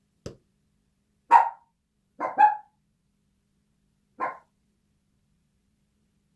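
A dog barking: a single bark, a quick double bark, then one more bark a couple of seconds later. A short dull knock comes just before the first bark.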